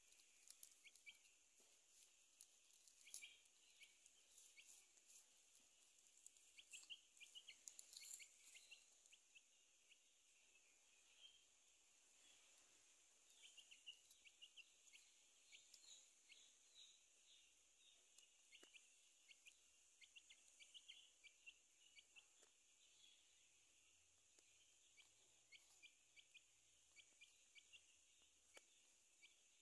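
Near silence with faint, scattered cheeps of a baby chick over a steady high hiss.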